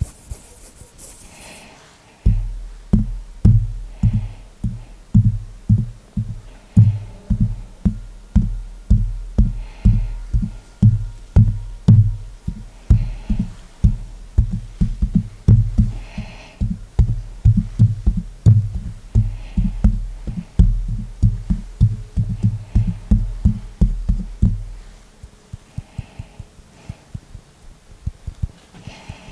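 Hands tapping rhythmically close on the microphone, giving deep thumps about two or three a second with light finger clicks on top. The thumping starts about two seconds in and stops a few seconds before the end, leaving scattered finger clicks.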